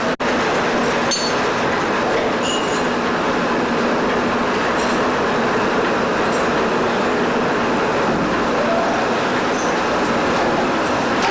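Heavy-duty all-geared lathe running steadily, its gearbox giving a continuous mechanical rumble with a faint hum and occasional light high squeaks. The sound cuts out for an instant just after the start.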